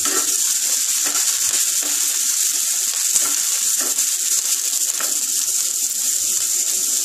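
Chopped onion and tomato sizzling steadily in hot oil in a nonstick frying pan. A wooden spatula stirring them makes a few light scrapes and taps.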